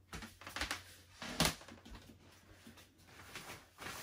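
Stiff black PVC bed sheet crinkling and rustling in irregular bursts as it is handled and spread over a mattress, with one sharper crackle about a second and a half in.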